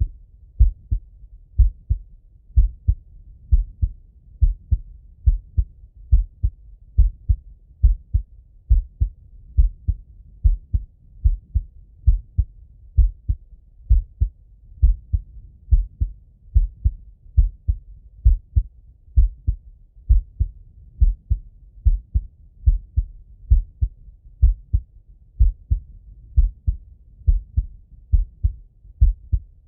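A man's heart beating, heard through a Littmann stethoscope: steady, regular paired lub-dub thumps at roughly one beat a second, slow and relaxed.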